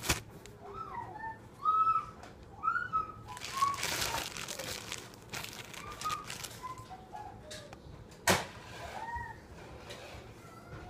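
Hands assembling a sandwich on a plastic plate: a sharp knock at the start and another about eight seconds in, and a stretch of rustling around four seconds in. Many short, high calls that rise and fall are heard throughout.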